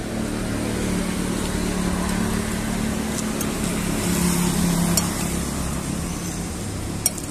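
A motor vehicle engine running steadily, its pitch dropping slightly about four seconds in, with a metal spoon clinking on a china plate once or twice.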